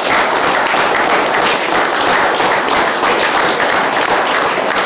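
A small group of people applauding, with dense, steady hand-clapping.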